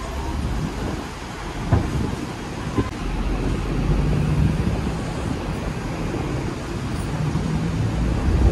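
Hong Kong double-decker electric tram running along its track, heard on board: a steady low rumble and hum, with two short sharp knocks about two and three seconds in.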